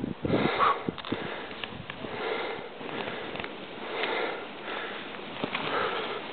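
A skier breathing hard in even puffs, about one every two seconds, over the steady hiss of skis sliding through snow.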